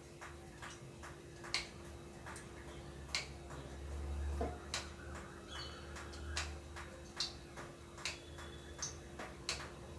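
Faint scattered clicks and light taps of a metal spoon against an aluminium kadai as cooking oil is spread in the cold pan, over a faint steady hum.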